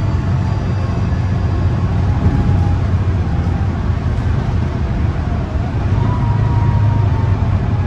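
Volvo B9TL double-decker bus's diesel engine running steadily with road noise, heard from inside the bus, a deep steady hum with a faint whine that shifts in pitch about five and a half seconds in.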